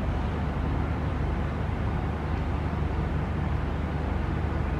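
Steady low rumble with a faint hiss of outdoor background noise, unchanging throughout.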